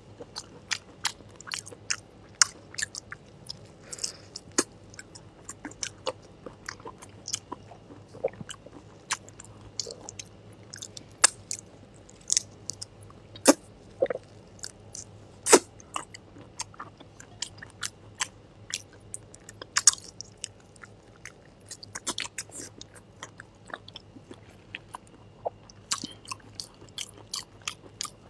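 Close-miked eating of raw shrimp steeped in a chili brine: chewing and biting with many sharp, irregular crisp clicks and a few wet smacks.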